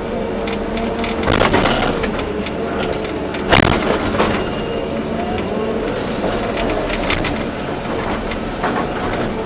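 Volvo EC240B excavator's diesel engine and hydraulics running steadily, with a few sharp clanks and scrapes, the loudest about three and a half seconds in.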